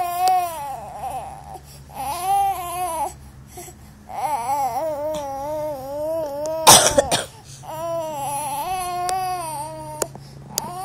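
Infant crying in a run of wavering, pitched wails with short breaks between them, and a harsh cough about two-thirds of the way through.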